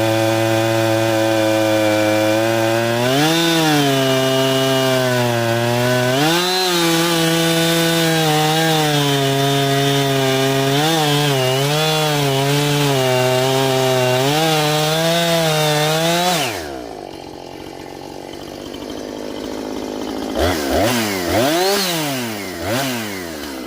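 Husqvarna chainsaw running at high revs, its pitch dipping again and again as it cuts wood under load. About 16 seconds in the revs fall away and it drops to idle, then it is revved briefly a few times near the end.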